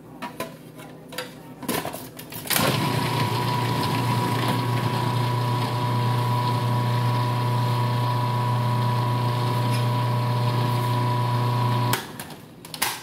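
Electric food processor running steadily for about nine seconds, chopping spinach, tomatoes and mixed vegetables: a loud motor hum with a high whine that starts abruptly about two and a half seconds in and cuts off about a second before the end. Before it starts, a few knocks as the lid and pusher are handled.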